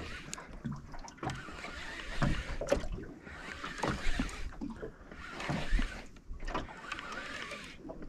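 Overhead jigging reel being cranked to wind in a hooked fish on a jig, with water lapping against the small boat's hull. The sound swells and eases about every couple of seconds.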